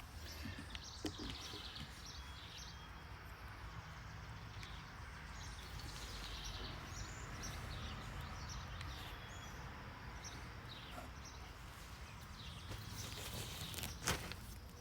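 Quiet outdoor ambience: faint bird chirps over a steady low rumble, with a single knock near the end.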